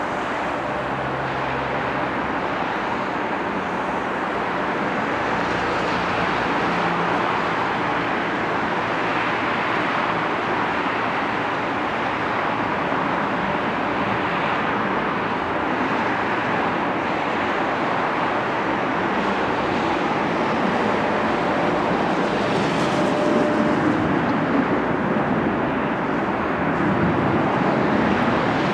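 Four-engine Airbus A340-313X jet airliner on landing approach, its CFM56 engines making a steady rushing roar that grows slowly louder.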